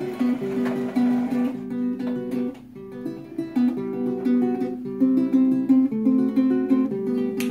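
Small classical guitar played fingerstyle: a melody of short plucked notes over a bass line, with a brief quieter pause about three seconds in.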